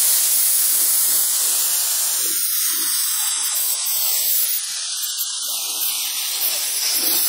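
Compressed-air blow gun hissing steadily as it blasts water off wet car paintwork, air-drying the body after a wash.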